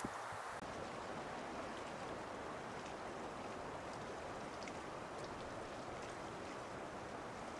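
Steady, even rushing noise with a few faint scattered ticks.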